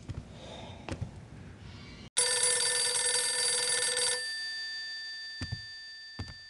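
Telephone bell ringing once for about two seconds, then dying away, with a couple of faint knocks near the end.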